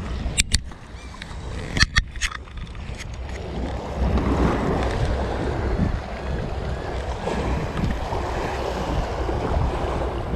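Small waves washing and lapping against the granite boulders of a jetty, with wind buffeting the microphone. The sound gets louder about four seconds in. A few sharp clicks come in the first two seconds.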